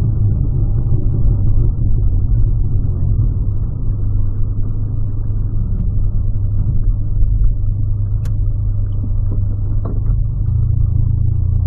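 Volkswagen Polo's engine and road noise heard from inside the cabin while driving: a steady low drone. A sharp click comes just past the middle, and the drone changes near the end as the driver shifts gear.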